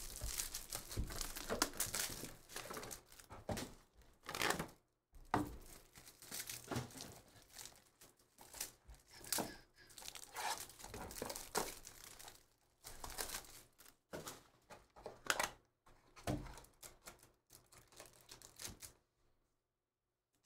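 Plastic shrink wrap and foil trading-card pack wrappers crinkling and tearing as a 2023 Panini Absolute Football box is unwrapped and a pack is ripped open, in irregular bursts that stop a second or so before the end.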